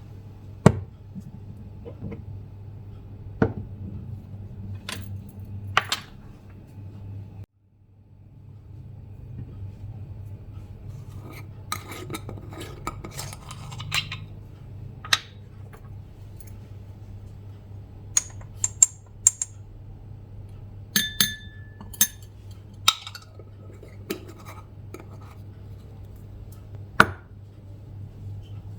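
Scattered clinks and knocks of dishes, glass and cutlery being handled, over a steady low hum. The sound drops out for an instant about seven and a half seconds in.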